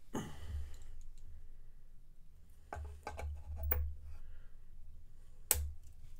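Clicks and light knocks of a power cord plug being handled and pushed into the electric boiler's connector on a toy steam engine, with a sharp click near the end.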